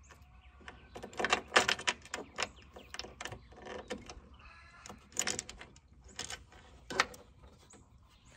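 Small metal hardware (bolt, nut and washer) clicking and scraping against an aluminum jon boat's bow gunwale as it is fumbled into an awkward corner by hand. It is an irregular run of light clicks and rattles, thickest a little over a second in, with sharper single clicks around five and seven seconds in.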